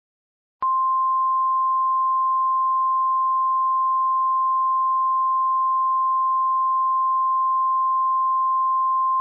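Mock Emergency Alert System attention tone in the style of NOAA Weather Radio's single-pitch warning alarm: one steady, unbroken tone starting about half a second in. It signals the start of a weather alert.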